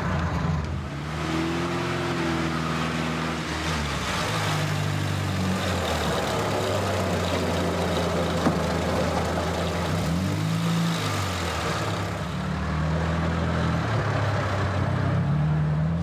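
Motor vehicle engine pulling away and driving, its revs rising and falling several times.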